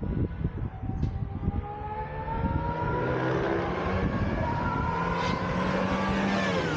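Aston Martin Valkyrie's Cosworth V12 approaching flat out, its high engine note climbing in pitch and growing louder as it nears. Near the end the pitch falls away as the car passes by.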